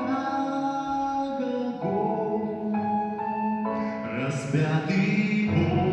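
Slow hymn music with sustained chords that change every second or two.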